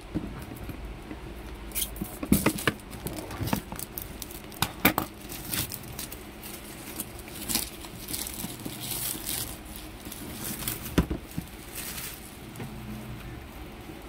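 Cardboard box and paper being handled during an unboxing: irregular crinkling, scraping and sharp taps, with the loudest knocks about two and a half, five and eleven seconds in.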